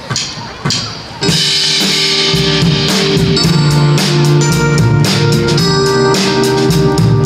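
A few sharp taps, then about a second in a small live band starts playing: drum kit with cymbals, keyboard piano and bass, with saxophone.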